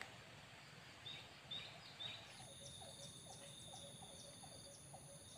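Faint forest ambience of insects chirping. A steady high insect trill sets in about two seconds in, with short repeated chirps over it.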